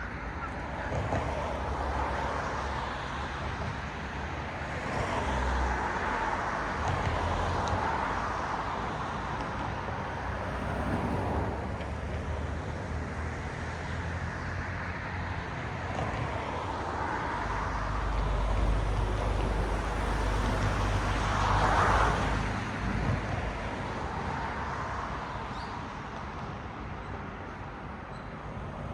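Cars passing one after another on a road, the tyre and engine noise swelling and fading several times, with the loudest pass about three-quarters of the way through, over a steady low traffic rumble.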